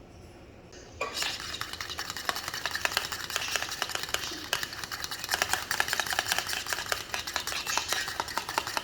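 A utensil stirring briskly in a bowl, with rapid clinks and scrapes against its sides, starting about a second in.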